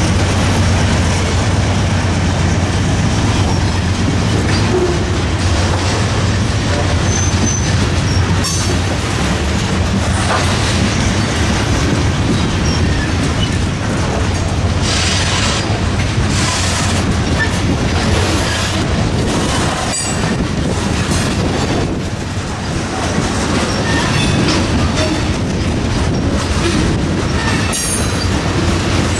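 A long freight train's cars rolling steadily past at track side, wheels clacking over the rail joints, with brief high wheel squeals several times. A low steady hum fades away in the first few seconds.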